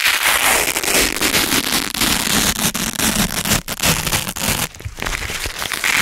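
Hook-and-loop (Velcro) fastener strips being pulled apart by hand: a dense, crunchy ripping crackle, broken by two short pauses about three and a half and nearly five seconds in.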